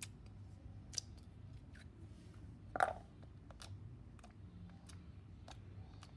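Glittery slime being squeezed and stretched by hand, giving off scattered small clicks and pops, with one louder pop about three seconds in.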